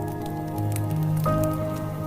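Calm instrumental music with held notes and a bass line, moving to a new chord about a second in, over the small dry crackles of a log fire.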